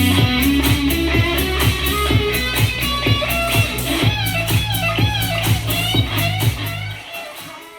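Guitar-led instrumental music with bass and a steady beat. It stops about seven seconds in and rings away.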